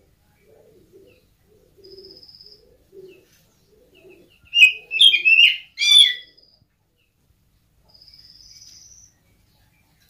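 Oriental magpie-robin (kacer) singing. About halfway through comes a loud burst of sharp, varied whistles and harsh notes, with a short buzzy trill before it and another near the end. Quiet low cooing notes repeat underneath in the first half.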